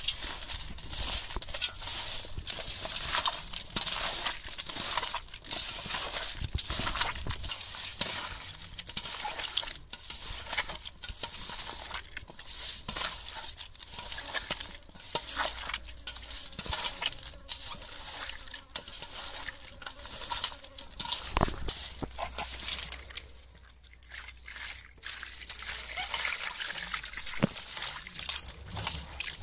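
Hands scrubbing shelled snail meat with rock salt in a stainless steel bowl to clean it: a continuous wet, gritty rubbing with many small clicks against the metal. Water is poured into the bowl near the end.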